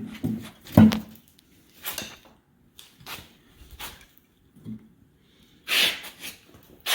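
Cylinder head of a Mopar 360 Magnum small-block being worked loose and lifted off the block: a string of separate knocks and scrapes, the loudest about a second in, and a longer rasping noise near the end.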